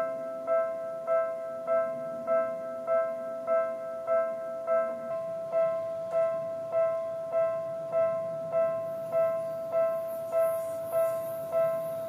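Japanese railway level-crossing alarm ringing, an electronic bell tone repeating evenly at nearly two strikes a second, the warning that a train is approaching. A faint hiss from the approaching train comes in toward the end.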